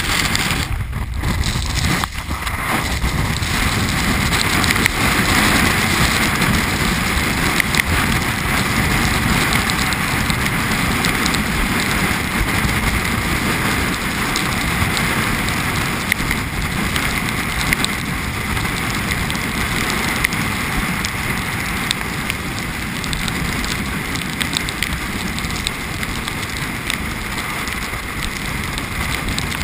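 Gale-force mountain wind blasting over an action camera's microphone: a loud, steady rush of wind noise with brief lulls about one and two seconds in and scattered small ticks.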